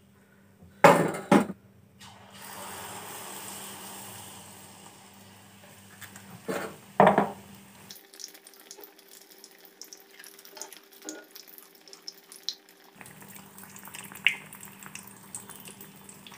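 Malpua deep-frying in hot oil in an iron kadai: a sizzle with scattered crackles and pops, louder from about two to five seconds. Metal utensils clank twice about a second in and twice again around seven seconds.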